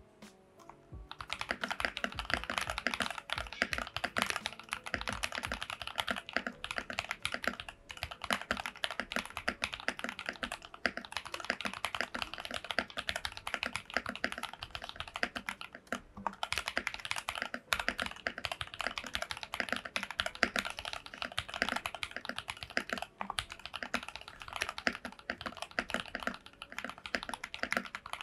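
Typing on a CM64 custom mechanical keyboard with KTT Wine Red linear switches, lubed with Krytox 205G0, in a plastic case. Fast, continuous keystroke clacking starts about a second in and pauses briefly a few times.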